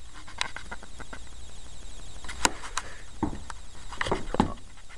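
A few scattered light knocks and clicks over a low hiss, the sharpest about two and a half seconds in and a small cluster around three to four and a half seconds.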